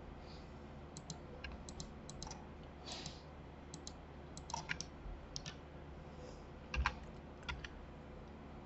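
Faint, irregular clicking of a computer keyboard and mouse as modelling shortcuts are pressed, a few clicks at a time, with one slightly louder click about three quarters of the way through.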